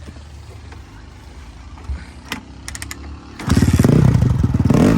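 A few clicks, then the Crossfire CX250R dirt bike's 250 cc engine starts about three and a half seconds in, revs briefly and settles into a steady idle with regular firing pulses. It fires up after its faulty wiring has been bypassed with a direct connection.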